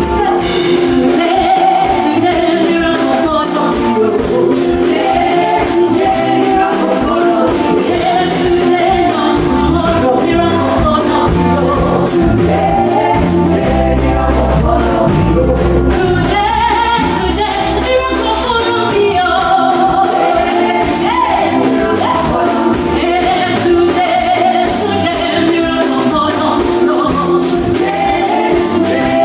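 Gospel worship music: several voices singing together over band accompaniment with a steady beat.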